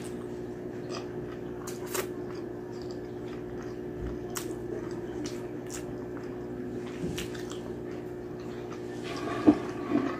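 Close-up eating sounds of a person chewing, with wet lip smacks and small mouth clicks, over a steady low hum. A sharp knock comes near the end, followed by a smaller one.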